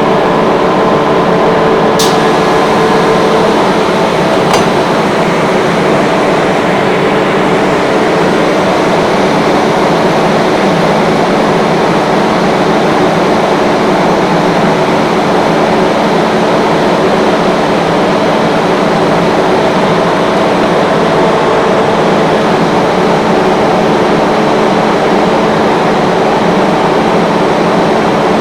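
Rotary screw air compressor running steadily and loudly, a dense even noise with a constant hum. Two short clicks about two seconds in and again about four and a half seconds in.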